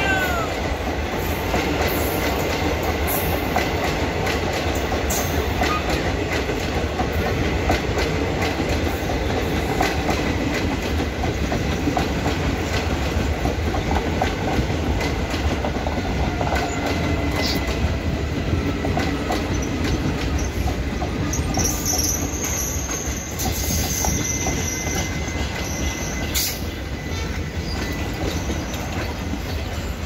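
Passenger coaches of an express train running past at speed: a steady rumble of steel wheels on rail, dense with clicking from the wheels over the track, and a thin high whine from the wheels at times.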